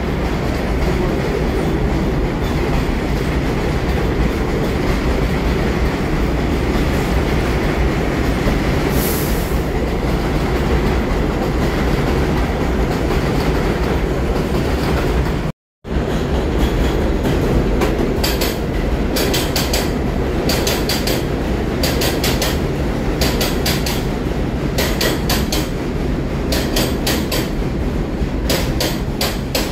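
New York subway trains on elevated track: an R62 train running steadily past on the far track, then, after a brief gap about halfway, an R142 train moving alongside the platform. Its wheels click over the rail joints in quick groups about once a second.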